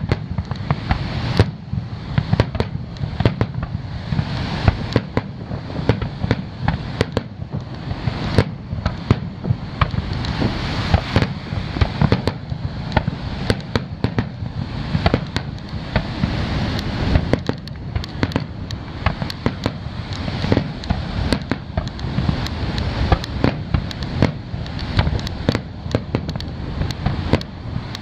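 Aerial firework shells bursting one after another: a sharp bang every second or so, some coming close together, over a steady low rumble.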